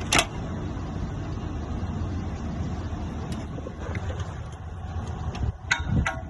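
An engine running steadily with a low rumble, with a sharp click just after the start and a few sharp knocks near the end.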